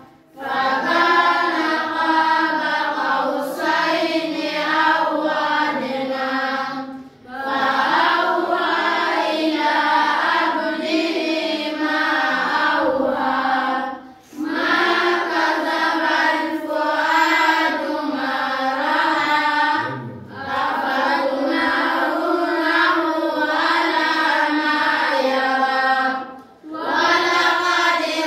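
A class of children reciting the Quran aloud in unison, in a chanted melody. They recite in long phrases and break for a short breath about every six to seven seconds.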